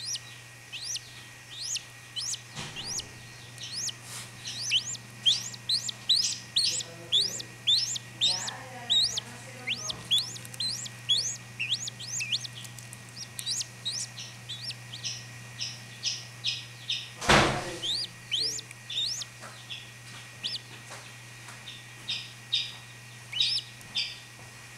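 Newly hatched chachalaca chick peeping: a long series of short, high, rising peeps, about two a second, coming in runs. A single loud knock about two-thirds of the way through.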